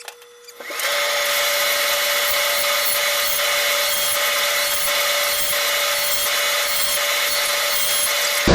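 Electric planer running at a steady pitch and shaving wood: a steady whine over a dense hiss of cutting. It starts about a second in and stops abruptly near the end.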